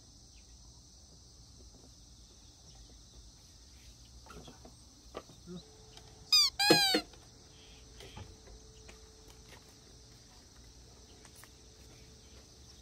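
Steady high-pitched insect chorus. About six seconds in there is a short, loud, high squeal in two quick parts, with a few light knocks around it.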